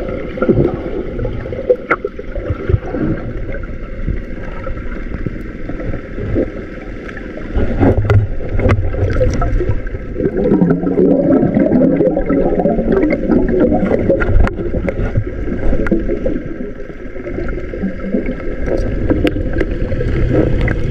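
Muffled underwater sound from a submerged camera: a steady low rumble of moving water with scattered small clicks and knocks. About ten seconds in comes a few seconds of bubbling as a snorkeller breathes out.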